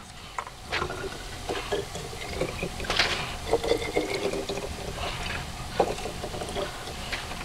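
Honey liqueur (honey, spices and strong spirit) pouring from a stainless steel pot into a glass jar, with a few small knocks and clinks.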